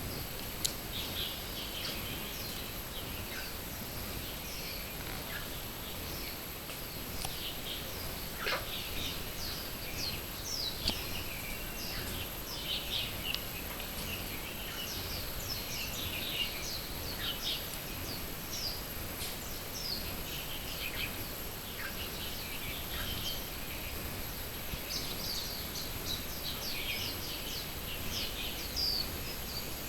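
Early-morning chorus of many small birds chirping, short high calls overlapping without a break over a steady hiss. One call glides down in pitch about a third of the way in.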